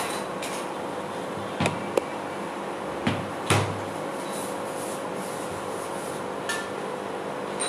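A handful of short, separate knocks and clicks from kitchen items being handled and set down on a work table, over a steady background hum.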